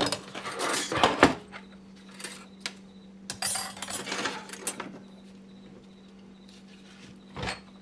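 Metal clutch plates and parts of a 4L80e automatic transmission clinking and clanking as they are handled and set down: irregular clanks, most in the first five seconds and one more near the end, over a faint steady hum.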